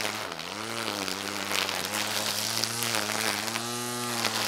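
Cordless electric string trimmer running, a steady motor whine that dips in pitch and recovers several times as the spinning line bogs down in the weeds and frees up again, over the hiss of the line cutting through the growth.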